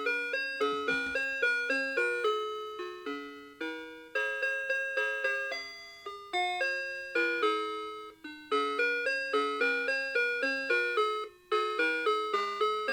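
Citizen 4RM753 Ghibli melody alarm clock playing its alarm tune: a quick run of chime-like notes, each struck and fading, with one brief pause about eleven and a half seconds in.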